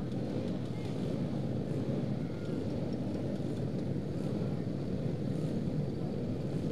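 A grid of about two dozen tuned 131cc racing automatic scooters running together on the start line, their engines blending into one steady, dense drone with no single engine standing out.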